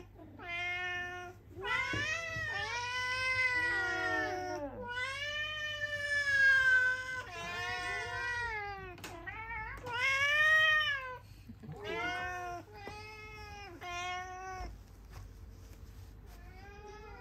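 Several domestic cats meowing over one another: a string of drawn-out meows that rise and fall in pitch, often two cats calling at once, thinning out near the end.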